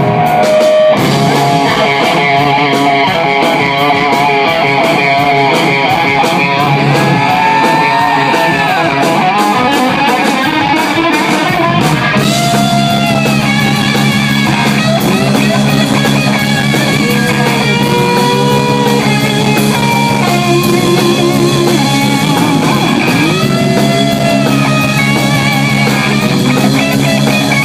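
Live rock music: electric guitar playing bending, sliding notes over drums and bass, loud and continuous.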